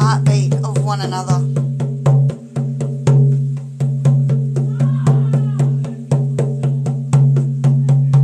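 Hand-held rawhide frame drum beaten in a steady, even rhythm of about four strokes a second, each stroke ringing with a deep boom.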